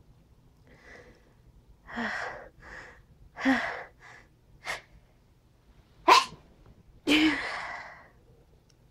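A person in a sneezing fit: several sneezes one after another with quick breaths between them, the sharpest and loudest about two thirds of the way through, the last one trailing off.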